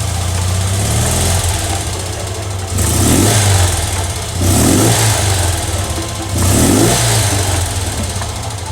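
BMW R60/5 air-cooled flat-twin boxer engine idling, with its throttle blipped three times so the revs swell briefly and drop back.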